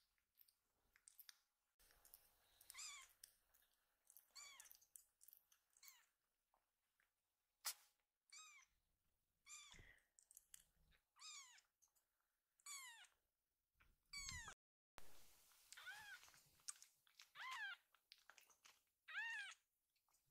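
Very young kitten mewing: a string of short, high, thin mews about a second apart, each rising then falling in pitch, with a few small clicks between.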